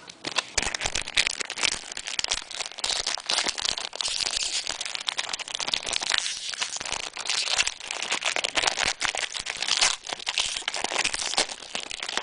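Trading-card pack wrapper crinkling and crackling as a pack is opened and its cards are handled, a dense run of small crackles throughout.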